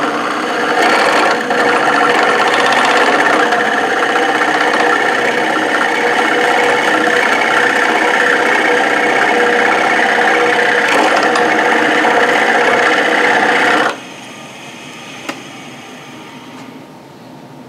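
Spiralling tool's toothed cutter wheel chattering against the end grain of a wood blank spinning on a lathe as it cuts a swirl pattern: a loud, steady rasping buzz that stops abruptly about 14 seconds in, leaving the quieter hum of the running lathe.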